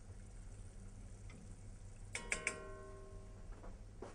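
A few quick taps of a stirring utensil against a stainless steel saucepan a little past halfway, each leaving a short metallic ring, over a low steady hum.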